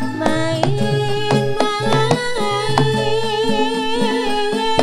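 Ndolalak dance music: hand drums beating a steady rhythm under one long held, gently wavering melody line.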